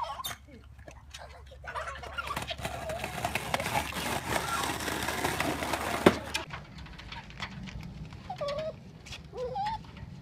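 Plastic wheels of a child's toy ride-on jeep rolling and grinding on a concrete sidewalk as a bulldog pushes it, ending with a sharp knock about six seconds in. A few short chirps follow.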